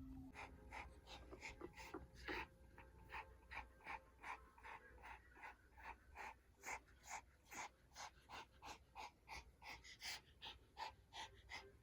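Elderly Pomeranian panting softly and steadily, about three breaths a second.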